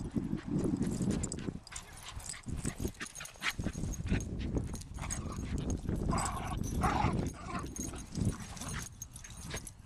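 Two small dogs, one a West Highland white terrier, play-fighting, with short yips and barks, the loudest a few about two thirds of the way in.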